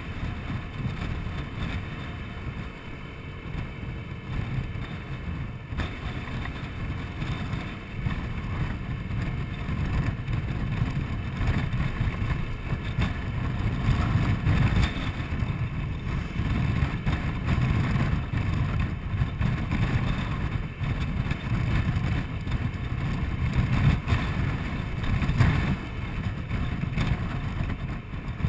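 Wind buffeting the microphone on a moving Honda Forza 125 scooter, mixed with the scooter's engine running at road speed. A low, fluctuating rumble that grows louder from about eight seconds in.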